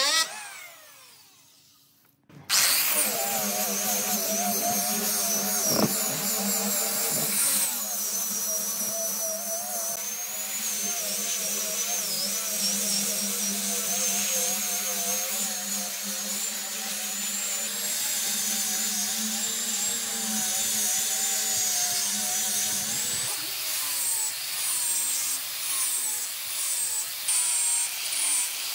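An electric hand planer spins down and fades out over the first two seconds. Then an angle grinder fitted with a sanding disc starts and runs with a steady hum and a high whine as it sands the edge of a wooden slab. Near the end its sound turns uneven.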